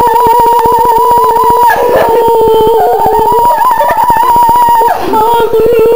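Young girls singing, one voice holding a long, loud high note that wavers and breaks briefly about two seconds in and again about five seconds in: the high note of the song.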